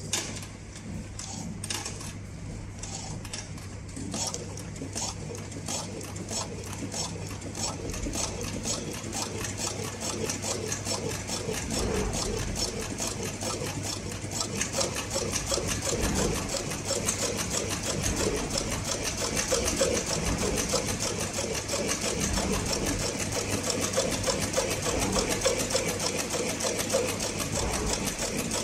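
CowBoy CB4500 heavy-duty compound-feed walking-foot industrial sewing machine stitching a green extrusion profile onto conveyor belting, its needle and feed clicking rhythmically. It starts slowly, a few stitches a second, and speeds up to a fast even run about halfway through, over a steady low hum.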